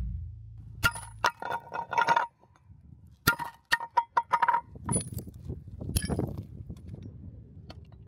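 Hammer tapping and striking a cast iron weight plate: sharp metallic clinks, each with a brief ring, in quick runs, after music cuts off about a second in.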